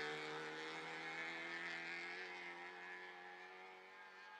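Off-road safari racing car's engine running at a steady pitch and fading steadily as the car moves away.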